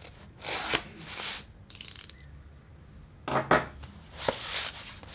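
Kraft-paper padded mailer being opened and handled: a string of dry paper rustles and scrapes, with the sharpest crinkle about three and a half seconds in.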